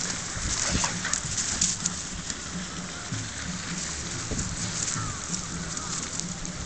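Gusty wind buffeting the microphone, with the dense crackling rustle of dry fallen leaves as a golden retriever and a whippet wrestle and scramble on them.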